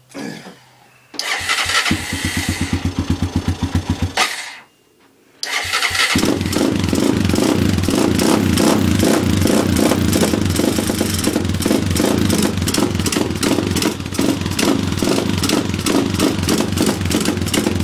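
Honda 300EX ATV's single-cylinder four-stroke engine, with an FMF PowerCore 4 full exhaust, being cold-started on choke. It fires and runs for about three seconds, dies, then is restarted about a second later and keeps running at a steady fast idle.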